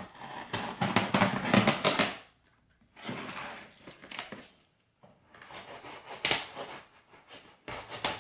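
A blade slicing along the packing tape on top of a large cardboard box, scratchy rasping and crackling in three bursts with short pauses between.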